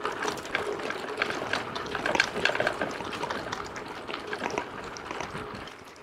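Mountain bike tyres rolling over a rough dirt forest track, with a steady crunching noise and many irregular small crackles and rattles.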